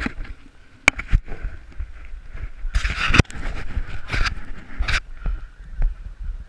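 Wind buffeting and rubbing noise on a body-worn camera's microphone as the wearer walks, with a deep rumble throughout. A couple of sharp knocks come about a second in as the camera is handled, and gusty rushes follow around three, four and five seconds in.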